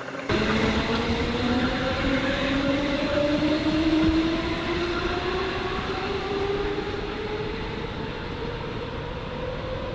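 Hamburg S-Bahn class 472/473 electric multiple unit pulling away and accelerating. Its traction motors give a steadily rising whine over the rumble of the wheels on the rails.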